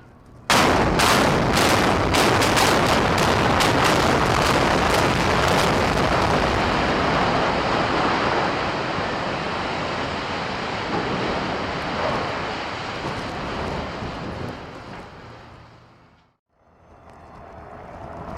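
Explosive demolition charges going off in a rapid series of sharp cracks, starting suddenly about half a second in and lasting about five seconds. They are followed by the long rumble of the 12-story steel-frame hotel collapsing, which slowly fades out. At about 16 s the sound cuts off, and a new, quieter noise rises after it.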